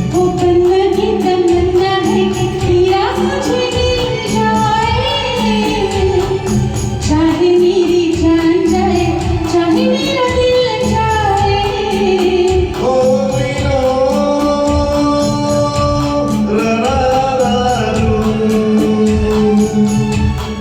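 Hindi film song performed as a cover: a sustained, gliding melodic line, sung or played, over a steady rhythmic backing beat.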